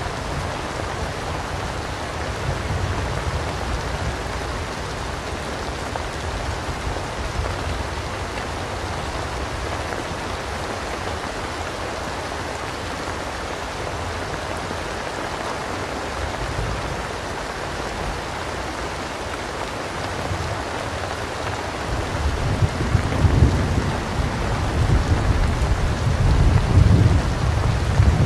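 Steady rainstorm, rain pattering down with a hiss, and rolling thunder rumbling low underneath that grows louder in the last several seconds.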